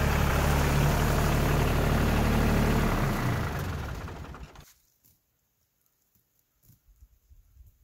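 New Holland compact tractor's diesel engine idling steadily, then shut off about three seconds in, dying away over a second or so. A few faint rustles and clicks follow.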